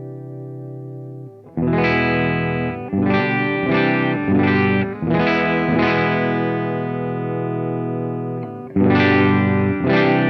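Gibson Les Paul electric guitar played through the freshly built LPD K-1 overdrive/boost pedal into a Suhr PT15 amplifier: overdriven chords strummed in a rhythm. A held chord fades out at the start, and another chord rings for a couple of seconds before a new run of strums near the end.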